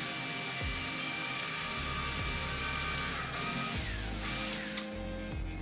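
Cordless drill boring a handle hole through a cabinet door, its motor whining steadily under load. About four seconds in the motor spins down, gives one short second burst, and stops.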